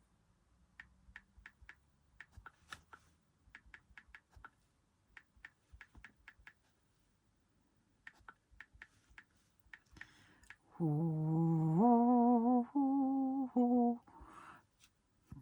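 Light, irregular clicks and taps, in short runs, then about eleven seconds in a person hums a short tune for about three seconds, a low note rising to a few higher wavering ones.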